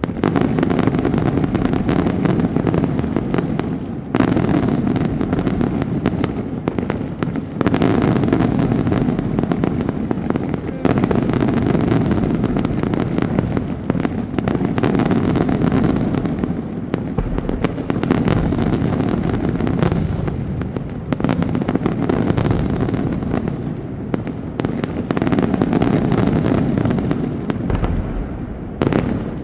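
Daytime fireworks display: a dense, continuous barrage of bangs and crackling, with fresh surges every few seconds, dying down near the end.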